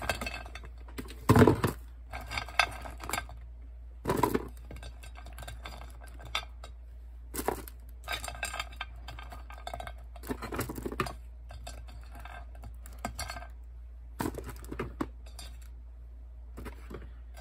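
Small plastic dolls being picked up and knocking against a metal baking tray and each other: irregular clatters and clicks, the loudest about a second and a half in.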